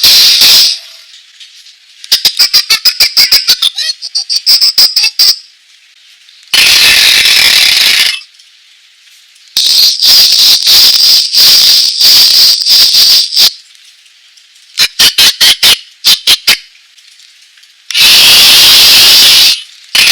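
Recorded animal sound effects from a children's sound book's small built-in speaker, thin and tinny, played one button-press at a time with short pauses between. Some clips are quick strings of clicking or chattering pulses, others steady hissing bursts.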